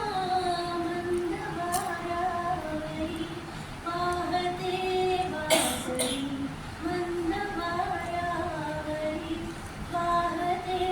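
A woman singing a slow melody solo, holding long, gently wavering notes with short breaths between phrases. A short burst of noise cuts in a little past halfway.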